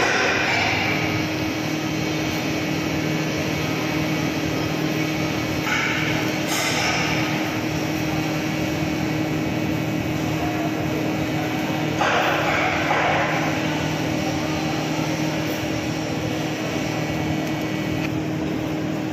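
TIG welding arc hissing steadily during a root pass on steel pipe, over a steady low hum, with a few brief louder rushes of hiss as filler rod is fed in.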